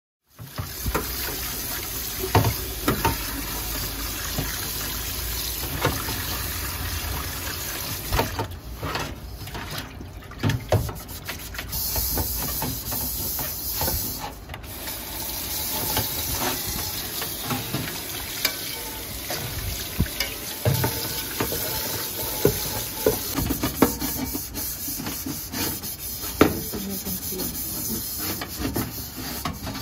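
Water running and splashing in a steel sink while a sponge scrubs a Yoshikawa Cook-Pal titanium wok, with frequent short knocks and scrapes of the wok being handled.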